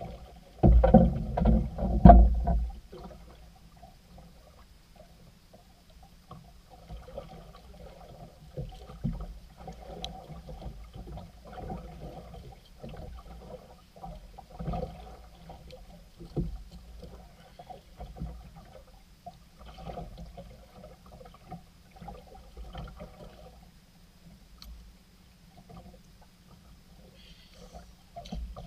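A few heavy thumps in the first seconds as a wooden club strikes a freshly landed tanigue (Spanish mackerel) held against the side of the boat. After that come lighter, irregular knocks and clatter as the fish is handled aboard the small boat.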